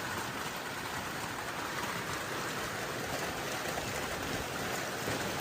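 Hailstorm: hail and heavy rain pelting down in a dense, steady patter.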